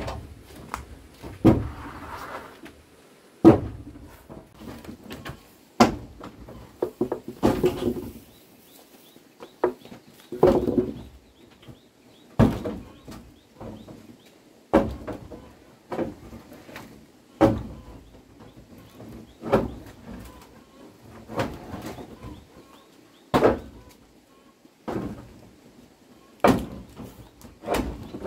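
Repeated sharp knocks of a hand tool striking wood, a strong blow about every two seconds with lighter taps in between.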